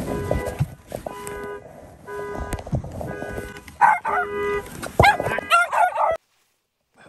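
Car alarm sounding through the horn in repeated short honks of one steady pitch. From about four seconds in, louder cries that slide up and down in pitch sound over the honks, and all of it cuts off abruptly a second before the end.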